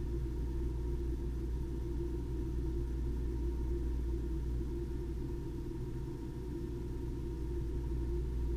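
Ear microsuction unit running steadily: a continuous low drone from the suction pump with a steady whine above it, as impacted, hardened ear wax is suctioned from the ear canal.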